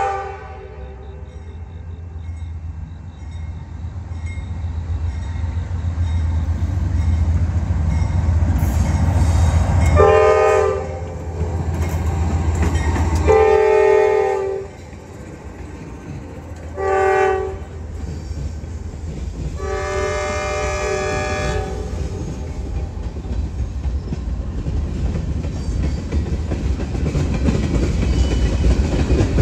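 Freight train passing close by: diesel locomotive engine rumbling as its horn sounds a chord in the long, long, short, long pattern of the grade-crossing signal, starting about ten seconds in. Once the locomotive is past, the freight cars roll by with wheels clacking over the rail joints.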